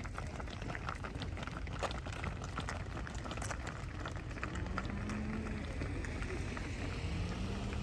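A herd of cattle walking past, their hooves making many small irregular clicks and scuffs over a steady low rumble.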